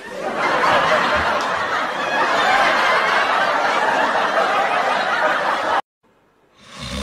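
A crowd laughing, a dense, busy swell of many voices that cuts off suddenly just before six seconds in. After a brief silence, a dog starts a low snore near the end.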